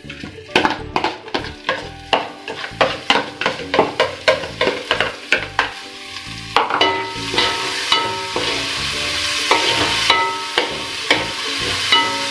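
Chopped onions scraped out of a bowl into a pot of hot coconut oil and stirred with a metal slotted spoon. Quick scraping knocks for about the first half, then the onions sizzle steadily in the oil while the spoon clinks and rings against the aluminium pot.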